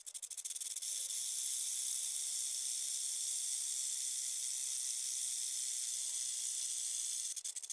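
Snake sound effect: a fast rattling for about the first second, then a long, steady, high hiss, with the rattling coming back near the end.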